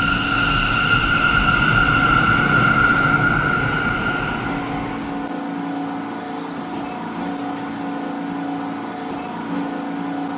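Model R46 subway train running on its track in a test run: a steady motor whine with a higher tone that fades out about four and a half seconds in, leaving a lower steady hum.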